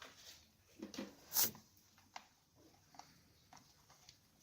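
Small clicks and knocks from handling a household fan's plastic parts, with one louder brief scrape about a second and a half in and a few lighter clicks after it.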